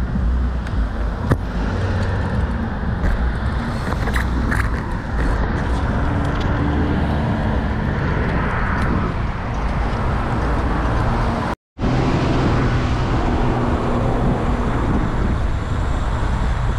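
Steady road and traffic noise with car engines heard among it, mixed with the rush of air over the microphone on a moving bike. The sound drops out for a split second about two-thirds of the way through.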